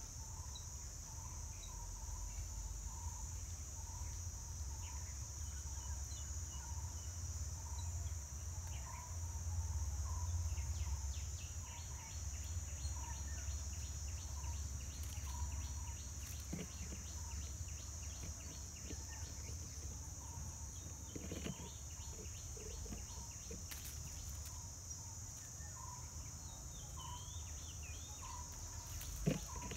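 Forest ambience: a steady high-pitched insect drone, with a short call repeating about once a second and, through the middle, stretches of rapid chirping notes. A low rumble runs underneath, and a single knock comes near the end.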